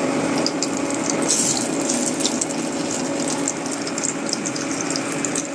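Slices of egg-dipped toast bread sizzling and crackling in hot oil in a frying pan, steady throughout with a low hum underneath.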